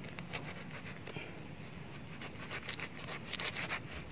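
A knife cutting and prying open a ripe jackfruit through its thick, knobbly rind and fibrous flesh, with a quick run of clicks and scrapes from about two and a half seconds in as the fruit splits apart.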